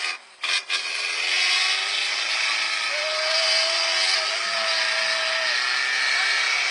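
Steady mechanical running noise, like a motor, after a couple of sharp clicks near the start, with a thin whine from about three seconds in.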